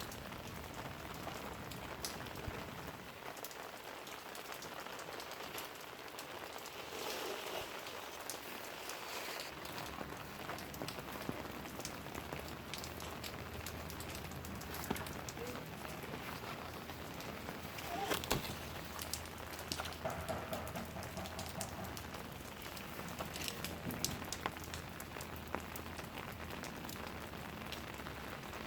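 Steady rain falling on a lemon tree's leaves, an even patter with many single drops ticking sharply through it. A faint low hum comes in about twelve seconds in.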